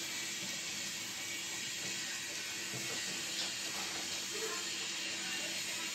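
Steady hiss with a faint low hum underneath and no distinct event.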